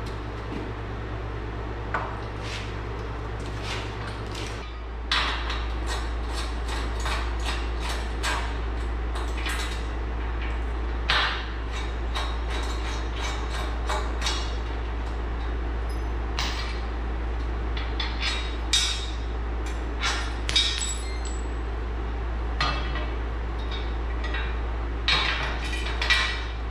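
Steel hardware and the shop press's steel brackets clinking and knocking against its H-frame as they are fitted by hand: a string of sharp metallic clinks and taps, few at first and then frequent, over a steady low hum.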